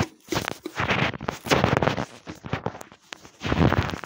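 Handling noise close to a phone's microphone: a string of rustles, scrapes and knocks as a hand repositions the phone, loudest in two clusters, the second near the end.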